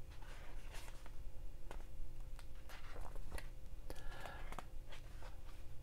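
A picture book's page being turned and handled: soft paper rustles and a few light taps, over a faint steady hum.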